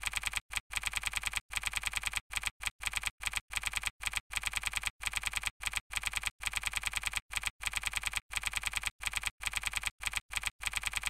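Computer keyboard typing: rapid keystroke clicks in quick runs with brief pauses between them, in step with the caption being typed out.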